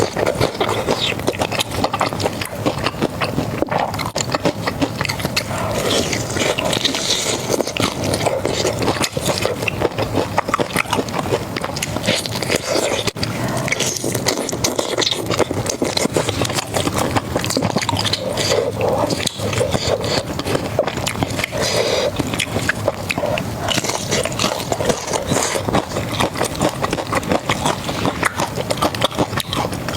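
Close-miked eating: a steady run of crunching bites and chewing of crispy fried food, with the snap and crackle of a crisp coating.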